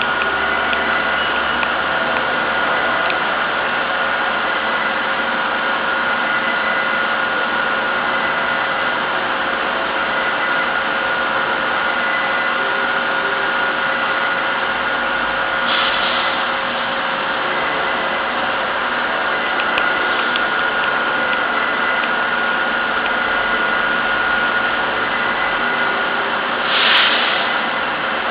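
CNC machine running steadily while cutting a lubrication groove into a part: continuous machine noise with a steady whine. Two short hisses break in, one about sixteen seconds in and one near the end.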